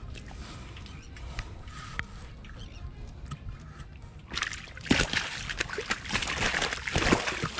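A released common snook thrashing and splashing in shallow water at the edge of a boat ramp, starting about four seconds in, with a few sharp slaps of its tail.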